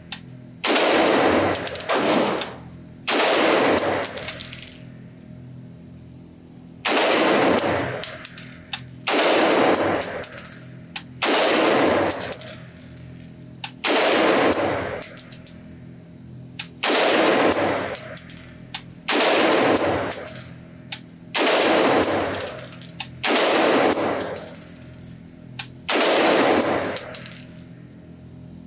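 Springfield Armory Saint AR-15 rifle fired semi-automatically, single shots about a second apart with a pause of a few seconds early in the string, each shot echoing off the walls of an indoor range.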